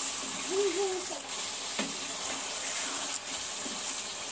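Boiled eggs and potatoes frying in oily masala in a pan, a steady sizzling hiss as they are stirred, with two light spatula knocks against the pan.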